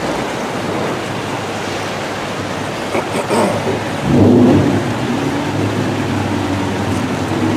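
Steady rushing background noise with no speech, joined about four seconds in by a low steady hum.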